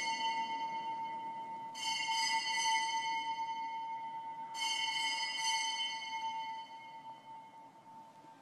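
Altar bells rung in bursts about three seconds apart, each burst ringing on and fading, to mark the elevation of the chalice at the consecration.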